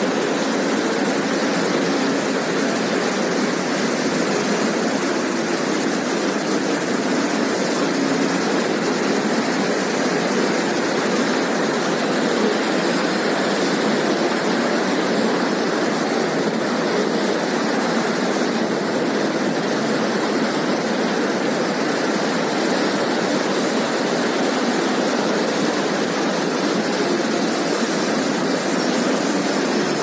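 Fast mountain river rushing over boulders in white-water rapids: a steady, unbroken rush of water at an even level.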